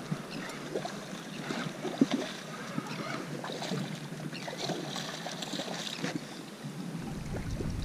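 Water splashing and lapping around a small boat, with wind on the microphone and scattered small knocks, the loudest a sharp one about two seconds in.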